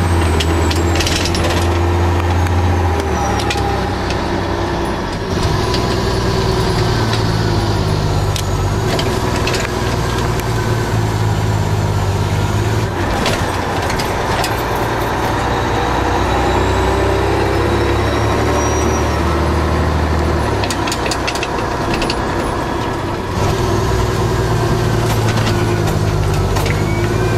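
Fire engine's diesel engine running under way, heard from inside the cab, with road noise and scattered rattling knocks. The engine note changes pitch a couple of times as the truck shifts or changes speed.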